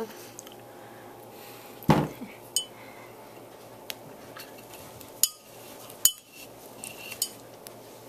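A thump about two seconds in, then several sharp metallic clicks and clinks as a multitool's small knife blade works against a wine bottle's foil-capped neck to cut the capsule.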